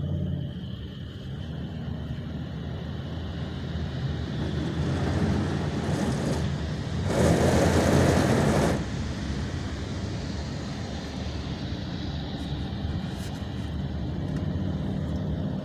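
Steady road rumble and wet-tyre hiss inside a car driving on a rain-soaked road. About seven seconds in, a much louder rush of water spray lasts a second or two and cuts off, as a Chevrolet Silverado pickup passes close alongside.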